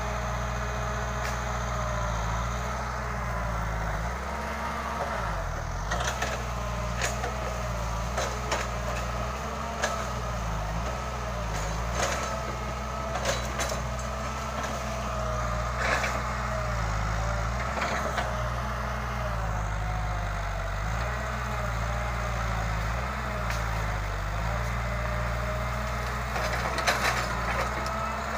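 Hitachi crawler excavator's diesel engine running steadily under working load, its note dipping and recovering as the arm moves, with a wavering hydraulic whine over it. Sharp cracks of wood and branches snapping come at intervals, several close together near the end.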